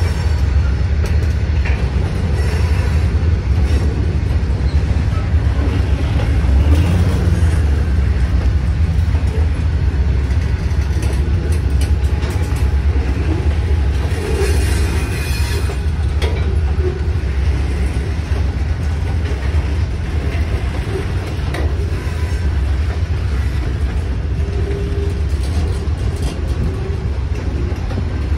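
Freight cars of a long freight train rolling past over a grade crossing: a steady low rumble of wheels on rail with scattered clanks and clicks.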